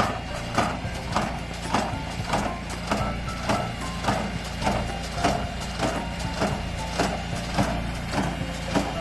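Farm harvesting machinery running: a steady engine hum with a regular mechanical clank repeating a little under twice a second.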